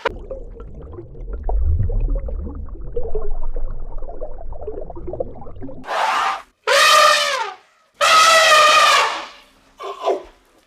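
Low rumbling noise, then a series of loud, wavering, pitched animal calls, three in close succession.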